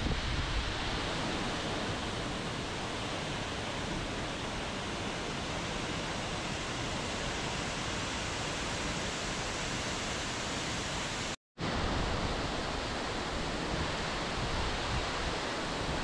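Water cascading down a waterfall: a steady, even rushing hiss with no change in intensity. The sound cuts out completely for a fraction of a second about eleven seconds in, then resumes unchanged.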